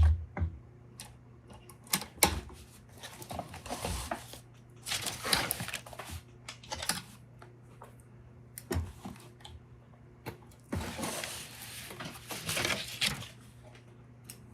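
Scattered clicks and knocks, with a few stretches of brushing, rustling fabric, as the apron is handled and repositioned at a sewing machine between stitching runs.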